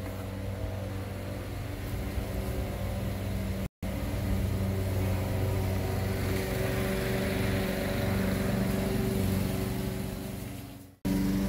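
A motor running steadily with a constant low hum. The sound drops out for an instant about four seconds in and fades away just before the end.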